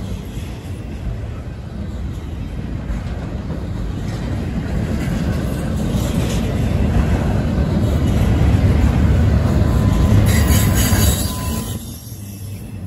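Double-stack intermodal freight train's loaded well cars rolling past, a steady rumble of steel wheels on rail that builds louder. Near the end there is a brief high squeal of wheels on rail, and then the sound drops off.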